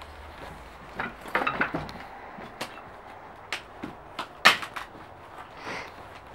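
Footsteps over rubble of broken clay roof tiles and charred wood: scattered crunches, clinks and knocks, with a cluster about a second in and the loudest knock about four and a half seconds in.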